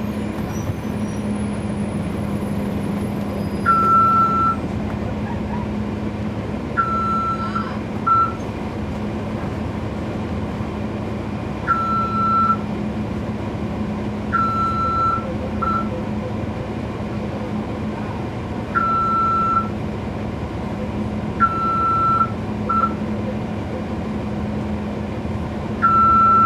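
Cummins ISL9 diesel of a NABI 40-SFW transit bus running steadily, heard from inside the cabin. Over it, a short electronic beep sounds seven times at irregular gaps of a few seconds, each opening with a brief higher chirp and sometimes followed by a quick second blip.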